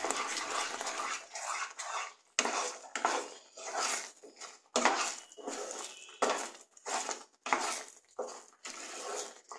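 Spatula scraping and slapping through thick water chestnut halwa in a nonstick pan, in repeated stirring strokes about twice a second. The halwa has become firm and is almost done.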